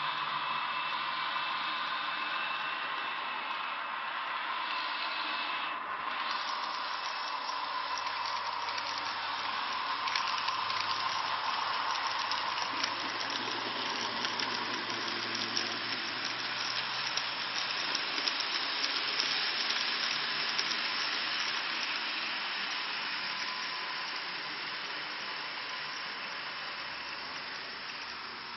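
TT-scale model train running on the layout under analog control: a steady whirring hiss of its small electric motor and its wheels on the rails. It grows louder as the train passes close, then fades near the end.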